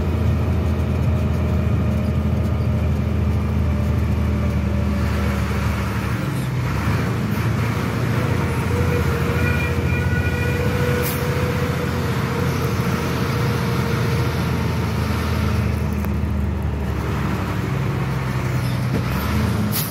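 Truck engine running steadily at low speed, heard from inside the cab, with road noise.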